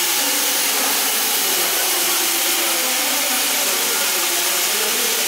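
Steam locomotive letting off steam: a steady hiss that holds at one level, with faint voices under it.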